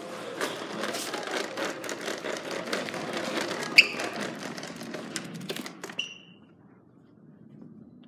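Upright vacuum cleaner being pushed unpowered across the floor, its plastic wheels and body rattling in quick clicks, with a couple of short squeaks; the rattling stops about six seconds in.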